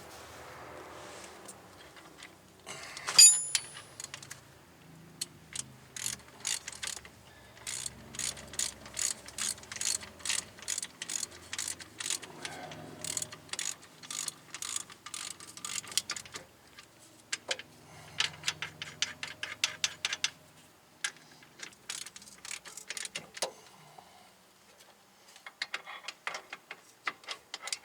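Hand ratchet wrench clicking in runs, about two to three clicks a second, as the rear hub bearing's mounting bolts are run in. A single metal clank sounds about three seconds in.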